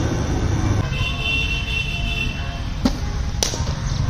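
Leverage IWinner cricket bowling machine running with a steady low hum, then two sharp knocks about half a second apart near the end. The second, louder knock is a cricket ball being struck by the bat.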